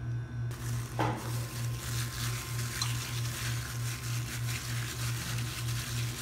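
A hand squishing and mixing raw minced chicken with egg and spices in a plate: wet squelching with small clicks, and a knock about a second in. Under it runs a low hum that pulses about twice a second.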